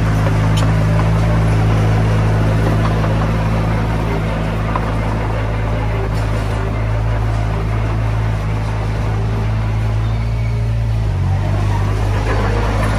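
Komatsu D20P bulldozer's diesel engine running steadily, its note shifting slightly about eleven seconds in.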